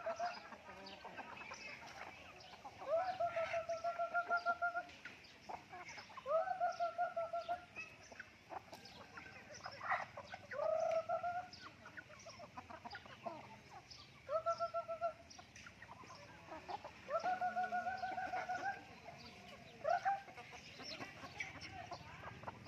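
Chickens calling: about seven drawn-out calls, each rising at the start and then holding a rapid pulsing tone for a second or two, with short clucks scattered between.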